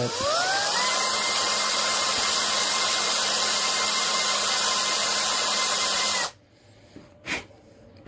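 Cordless drill spinning up to speed within the first second, then running at a steady pitch as it drills into the metal base of a Hot Wheels die-cast car, and stopping suddenly about six seconds in.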